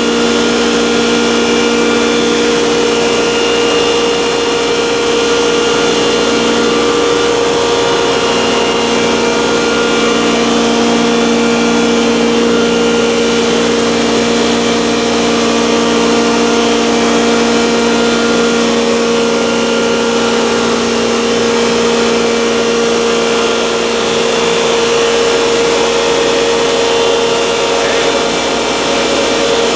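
Electric masala pulveriser (spice grinding machine) running steadily, an even motor drone with a slight dip in pitch about seven seconds in.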